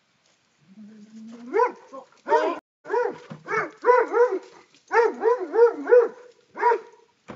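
A dog barking repeatedly in quick clusters, about a dozen barks, starting from a low drawn-out note that rises into the first bark.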